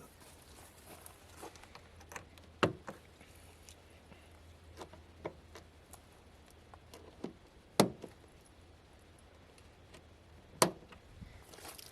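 Irregular light clicks and knocks, with three sharper knocks spread through, over a faint low steady hum.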